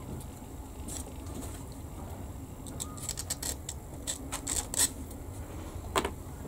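Small plastic model-kit parts clicking and tapping lightly as they are handled and dry-fitted together by hand, a run of light clicks in the second half and one sharper click near the end.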